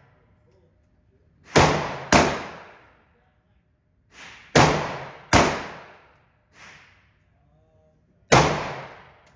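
Gunshots on an indoor shooting range, each ringing out in the hard-walled room. There are five loud shots, a pair a second or so in, another pair around the middle and a single one near the end, plus two fainter shots in between.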